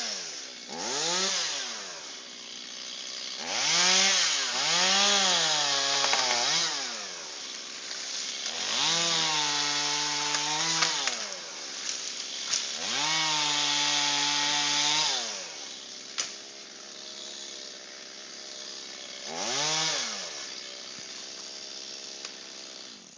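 Two-stroke chainsaw revving in repeated throttle bursts, dropping back to idle between them; twice it is held at full speed for about two seconds. A single sharp knock comes about two-thirds of the way through.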